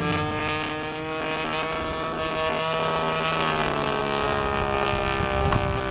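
DLE-20 single-cylinder two-stroke gasoline engine of an RC P-51 Mustang model in flight, swinging a 16x8 propeller with a steady buzzing drone. Its pitch drops a little just after the start and rises a little past the middle. A brief click comes near the end.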